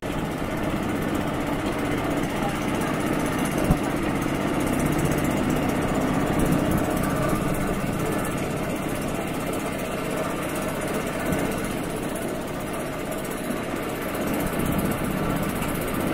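A wooden tourist boat's engine running steadily while the boat is under way across the lake. There is a single short knock about four seconds in.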